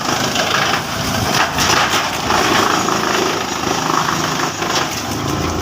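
Heavy-duty wood chipper running and chipping wood: a loud, steady machine noise with irregular cracking as the wood is cut up.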